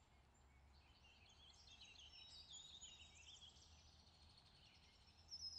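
Near silence with faint bird chirps in the background, and one brief, slightly louder high chirp near the end.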